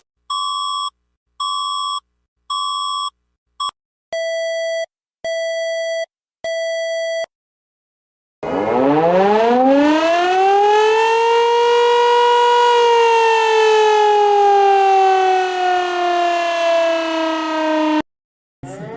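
Emergency alarm tones: three short steady beeps on one pitch, then three lower beeps. After a brief pause a civil defence siren winds up in pitch over about three seconds, holds, and slowly falls before cutting off. Another siren starts rising near the end.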